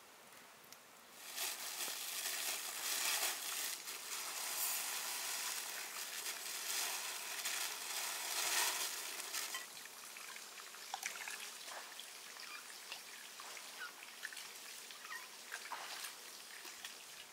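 A dry powdery ingredient poured from a crinkling plastic bag into a glass bowl, a steady hiss lasting about eight seconds. It is followed by softer rustles and small clicks as hands mix it in the bowl.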